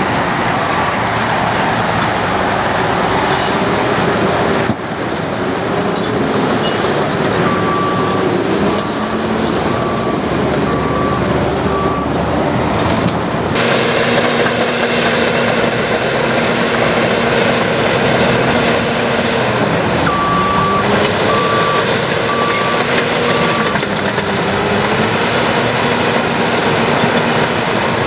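Heavy construction machinery running its diesel engines under load, the pitch rising and falling as it works. A reverse alarm beeps in runs of steady, evenly spaced beeps, twice in the middle and again at the end.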